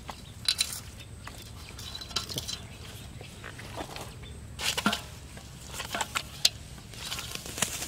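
Irregular knocks and clinks against a stainless-steel bowl holding live catfish as the fish are handled, with a cluster of them about five seconds in.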